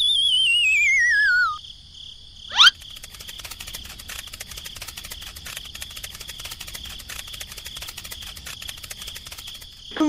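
A falling, wavering whistle for about a second and a half, then a quick rising zip about two and a half seconds in, followed by crickets chirping with rapid, dense clicking over a steady high trill.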